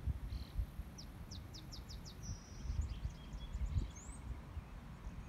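A small songbird chirping in quick series of high, thin notes, with a rising whistle about four seconds in, over a low rumble of wind on the microphone.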